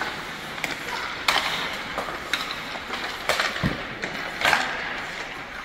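Ice hockey practice: skate blades scraping the ice under several sharp clacks of sticks on pucks, with a deeper thud about three and a half seconds in.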